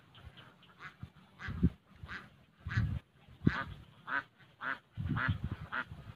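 Ducks quacking repeatedly, about ten short calls, with low thumps mixed in.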